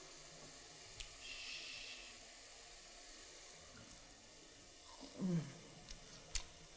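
A person eating a crispy deep-fried onion string: a few faint crunchy clicks of biting and chewing, with a short falling hummed "mmm" about five seconds in.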